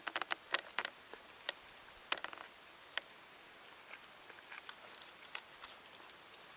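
A series of sharp, irregular clicks and ticks, bunched in the first second or so and again around five seconds in.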